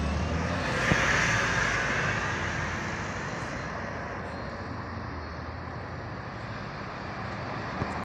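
London double-decker bus pulling away from a stop and driving off, its engine and rushing road noise fading as it goes, with a short click about a second in.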